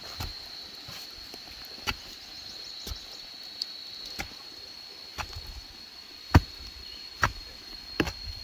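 A steady, high-pitched insect drone, with sharp, irregular knocks about once a second, the loudest about six seconds in.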